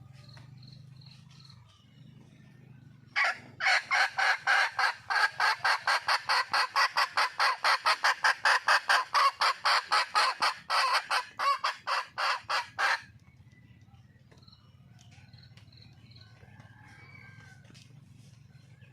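Wild junglefowl hen giving a loud, rapid run of repeated cackling calls, about four a second for some ten seconds, starting about three seconds in. It is the call of a hen calling for a male.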